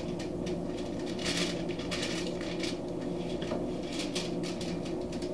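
Small kitchen knife scraping and picking at raw pork spare ribs on aluminium foil, trying to lift the membrane off the bone side, with the foil rustling now and then. A steady low hum runs underneath.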